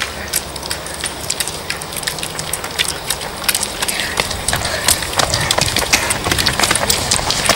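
Footsteps and ski-pole tips striking dry grass and dirt as children run uphill with walking poles: a rapid, irregular patter of crunches and clicks that grows denser and louder as they come close, over a steady low rumble.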